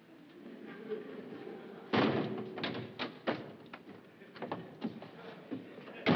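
A wooden apartment door bangs open about two seconds in, followed by a series of knocks and taps, with another loud knock near the end.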